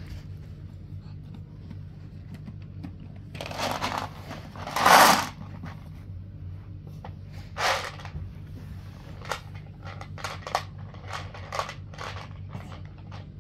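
A shiny plastic bag crinkling and rustling in irregular bursts as it is handled and rummaged through, loudest about five seconds in, then a run of shorter rustles near the end. A steady low hum lies underneath.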